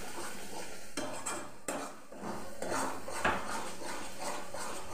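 A metal spatula scraping and knocking against a metal kadai as a thick masala paste is stirred, in repeated strokes. One sharper knock comes about three seconds in.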